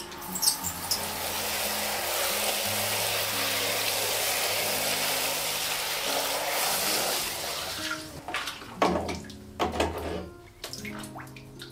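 Water pouring steadily into a plastic bucket of clothes, then stopping about eight seconds in, followed by a few splashes and sloshes in the water.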